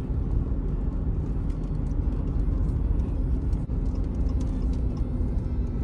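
Car running with a steady low rumble and a faint even hum.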